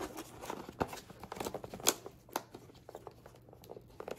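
A cardboard box being folded shut by gloved hands: a string of light clicks and taps as the lid and flaps are bent and tucked in, the sharpest about two seconds in.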